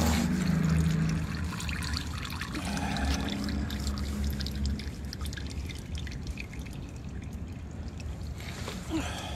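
Used engine oil pouring and trickling from the oil filter mount into a drain pan as the filter comes off, with a steady low hum underneath.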